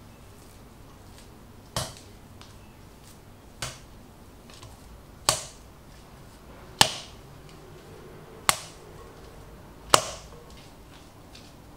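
Dough being kneaded by hand in a ceramic mixing bowl: six sharp thumps, about one every second and a half, as the dough is pressed and slapped down against the bowl, the later ones loudest.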